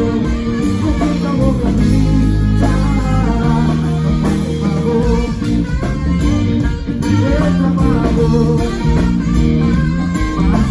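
Live band music: guitars and bass guitar playing continuously at a steady, loud level.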